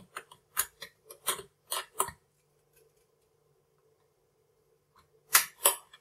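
Screwdriver and mounting screw clicking and scraping against a CPU cooler's mounting hardware while the screw is guided toward its thread. There is a quick run of about eight short clicks in the first two seconds, then two louder clicks near the end.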